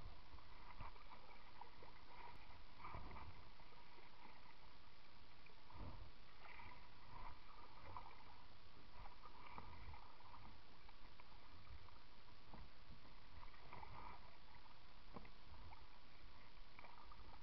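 Plastic kayak gliding on a calm river: faint water lapping against the hull, with a few soft knocks now and then.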